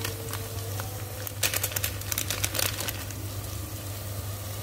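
Coriander powder tipped and shaken from a container into a pot, making a quick run of small clicks and rattles a second and a half in. Underneath is a faint steady sizzle of masala frying, with a low hum.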